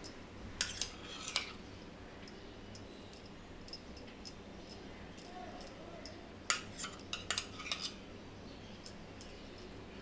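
Steel spoon scraping over slices of bread as butter is spread, in two short spells, about half a second in and again around six and a half seconds in, with light clicks throughout.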